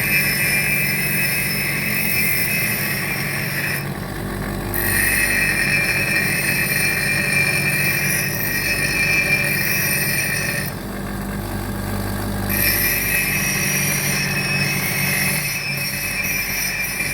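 A machine runs steadily with a low hum and a high whine; the whine cuts out twice for a second or two.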